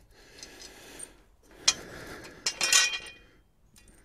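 Metal clinks and a short clatter as the steel mower blade is handled and set down on the concrete: a sharp click about a second and a half in, then the loudest ringing clatter around the three-second mark.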